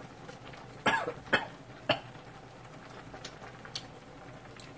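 A man tasting a hot instant-noodle strand: three short, sharp mouth-and-breath sounds about a second in, then a few faint ticks, over the steady hiss of pots of ramyeon boiling.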